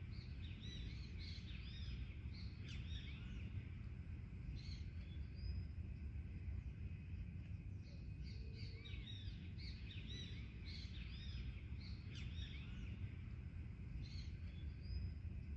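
Forest ambience: many small birds chirping and calling in short, quick arched notes, over a steady low rumble.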